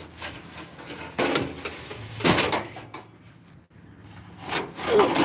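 Handling noise from a phone held close: fingers and clothing rubbing and bumping against the microphone in several short bursts, the loudest near the end.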